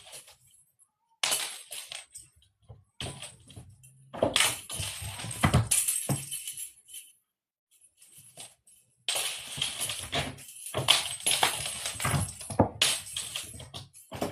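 A jingling, rattling cat toy batted and tossed about in irregular bursts, with short pauses between the bouts of play.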